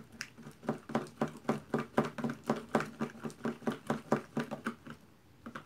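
Glue and slime activator being stirred fast with a spoon in a plastic bowl, the glue clumping as it turns to slime: a rhythmic run of squelching strokes, about four a second, that breaks off about five seconds in.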